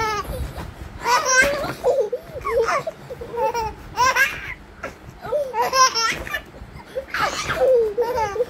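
A baby laughing in repeated high-pitched bursts, about every second or two, with babbling coos in between.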